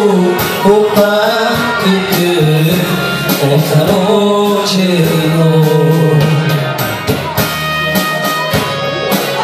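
A live band plays an instrumental passage of a Balkan-style folk song: a wavering lead melody over keyboard accompaniment and a steady beat.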